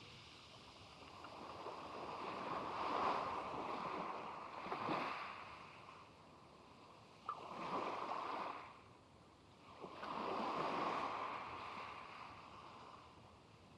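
Sea waves washing onto the beach, the rush of water swelling and fading in four or five surges a few seconds apart. A single short click comes about seven seconds in.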